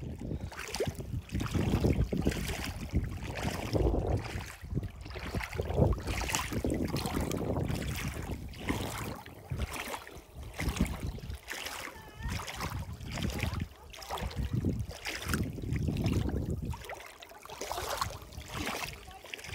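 Water splashing and lapping in shallow lake water over stones, with wind buffeting the microphone as a low rumble that swells and fades.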